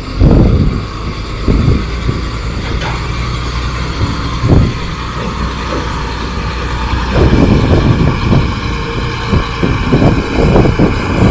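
Heavy truck's diesel engine running steadily, with irregular short thumps and knocks, more frequent in the last few seconds.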